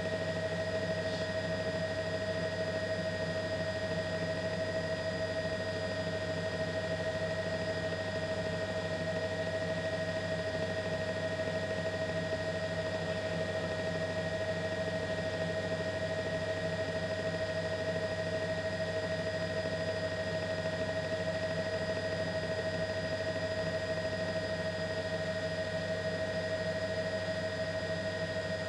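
News helicopter's turbine engine and rotors running, a steady, unchanging drone with a constant whine over it.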